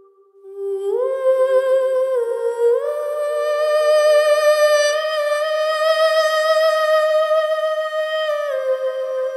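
Background music carried by a single wordless humming voice singing a slow melody of long held notes. It steps up about a second in, dips and rises again near three seconds, holds a long high note, and steps down near the end.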